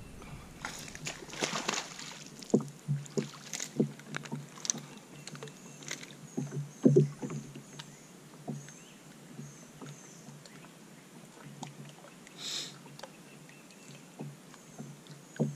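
Irregular clicks, knocks and small splashes as a largemouth bass is fought, reeled in and lifted aboard a bass boat, with a short splash-like hiss near the end.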